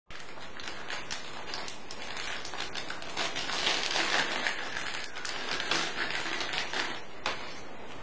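Crinkling of a clear plastic packet being handled and opened by hand, a dense run of small crackles, loudest midway, with one sharper click near the end.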